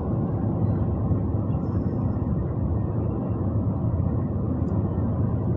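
Steady road and engine noise inside a car's cabin while it cruises at highway speed: a low, even rumble.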